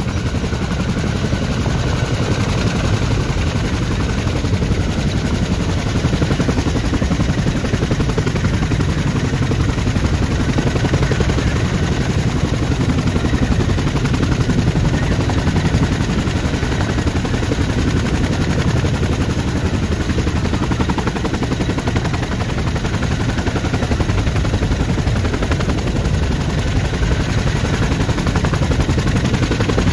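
Boeing CH-47 Chinook tandem-rotor helicopter running on the ground with both rotors turning: a loud, steady, rapid chop of rotor blades over engine rush.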